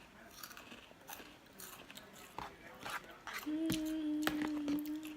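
Close-up chewing and mouth sounds of eating chow mein noodles: scattered small smacks and clicks. About three and a half seconds in, a steady low hum of one pitch starts and holds for under two seconds; it is the loudest sound.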